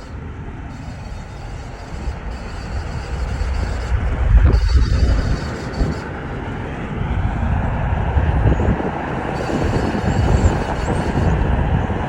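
Vehicle noise from a 2014 Ford Explorer, a steady low rumble with road and wind noise that grows louder over the first few seconds.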